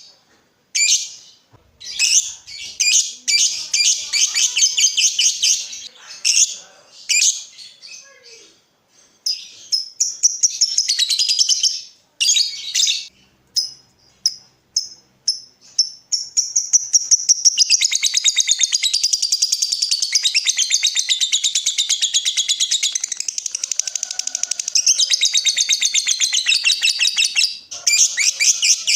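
Lovebird song: shrill, separate chirps and short bursts, then about halfway through one long, fast, rattling chatter of rapid repeated notes that runs for about ten seconds. This is the long trilling 'ngekek' song that lovebird keepers prize.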